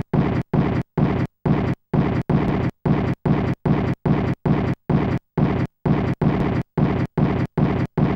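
A looped burst of rumbling noise repeating evenly a little over twice a second, each pulse starting and stopping abruptly with a short silence between, like a mechanically regular pulse in an electronic soundtrack.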